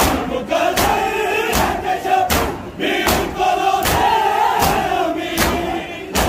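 Large crowd of men doing matam: many open hands slapping bare chests in unison, a sharp stroke about every 0.8 seconds, with the crowd's loud mourning chant between the strokes.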